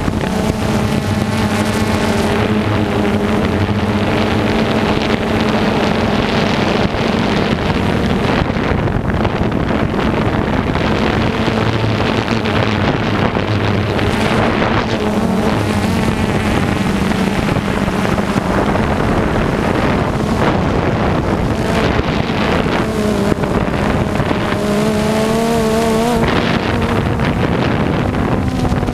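Engine of heavy harvest machinery running steadily at high revs, with wind buffeting the microphone. The engine note wavers in pitch about twenty-five seconds in.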